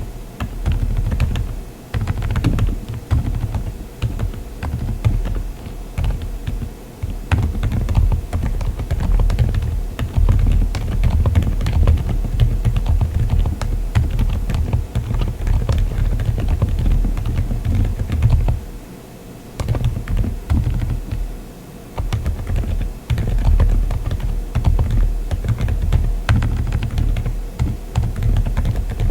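Typing on a mechanical keyboard fitted with Keychron Banana silent tactile switches: a dense run of keystrokes with a strong low thud, pausing briefly twice about two-thirds of the way through.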